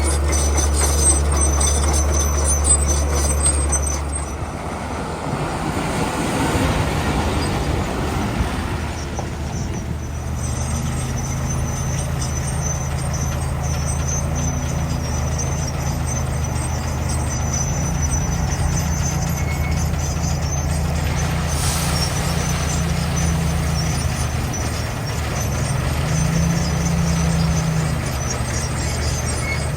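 Heavy diesel construction machinery running under load, a steady low engine note that shifts a few seconds in and then holds, with a brief hiss about two-thirds of the way through.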